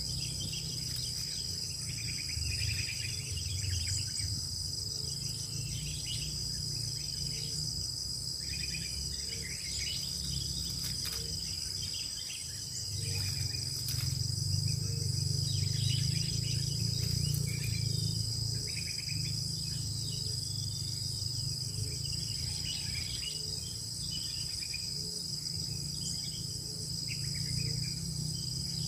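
A steady, high-pitched insect chorus with short bird chirps and calls scattered throughout, over a low hum.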